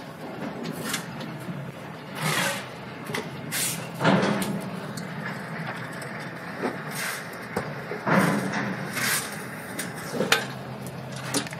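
Irregular clicks, taps and rustles of hands fitting bolts and nuts through a wire hook bracket onto a pressure washer's steel frame, over a low steady background hum.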